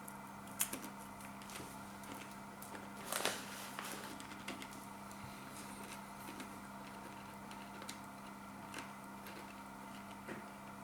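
Faint crunching and chewing of Takis rolled tortilla chips: a few scattered crisp crunches and crackles, the clearest about half a second in and about three seconds in, over a steady low electrical hum.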